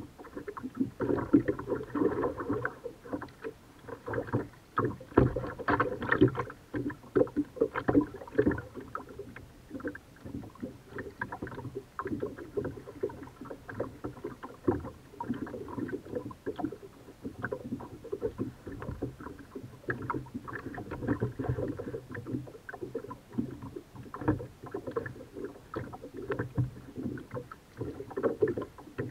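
Kayak paddling: the paddle blades dipping and splashing, with water slapping and knocking against the hull in an irregular run of short splashes and knocks.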